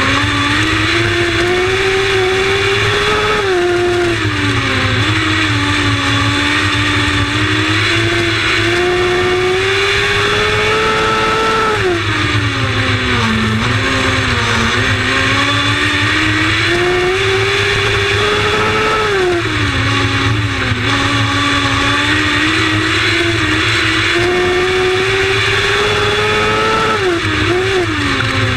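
Lightning Sprint race cars running laps. The leading engine's pitch climbs along the straights and drops into the turns, in a cycle that repeats about every eight seconds.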